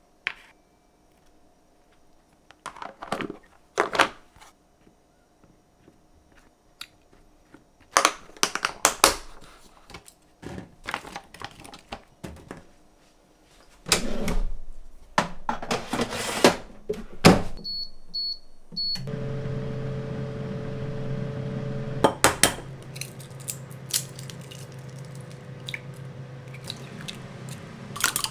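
Clicks and clatter of kitchen handling, then three short electronic keypad beeps about two-thirds of the way through, followed by the steady hum of a microwave oven running.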